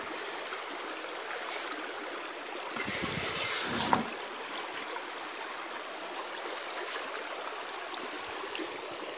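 Creek water running steadily through a sluice box, over its matting and riffles. A brief louder, deeper swell about three seconds in.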